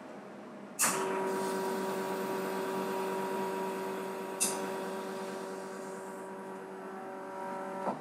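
Faema Faemina espresso machine's pump running while hot water pours through its group head onto ground coffee in a V60 dripper: one pulse of its automatic pour-over. It starts with a click about a second in and runs with a steady tone over a hiss of flowing water. There is another click partway through, and it stops with a click just before the end.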